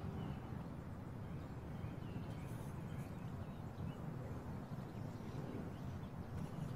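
Quiet, steady low-pitched background noise with no distinct events.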